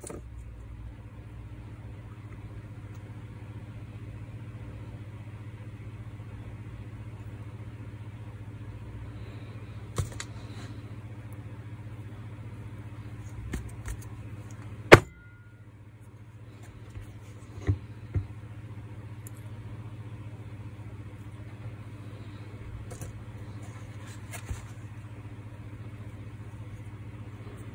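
A steady low hum, with a few sharp clicks and knocks of small metal gearbox parts being handled and set down; the loudest click comes about fifteen seconds in.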